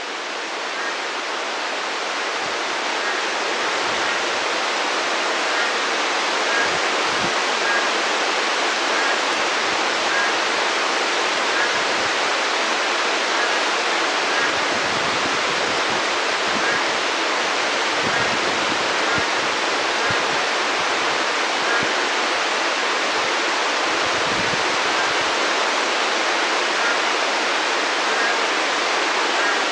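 Heavy monsoon rain pouring steadily, a dense even hiss that swells slightly over the first few seconds and then holds.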